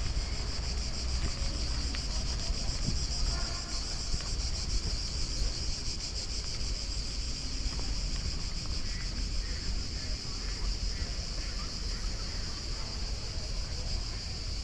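Steady, high-pitched buzzing chorus of insects in the park's trees, over a low rumble of wind on the microphone.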